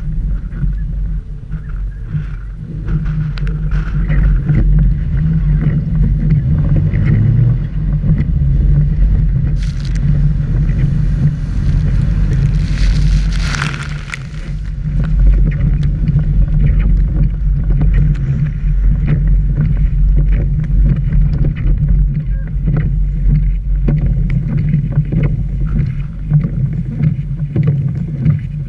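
Suzuki Vitara 4x4 driving off-road on a dirt track, the engine and tyres running in a steady low rumble. About halfway through, a loud hissing rush of water and mud spray as the car ploughs through a puddle.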